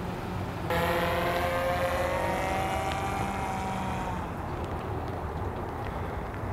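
DJI Matrice 200 quadcopter's propellers whining as it flies by. A stack of tones comes in abruptly about a second in, slides slowly down in pitch and fades out by about four seconds, over a steady low rumble.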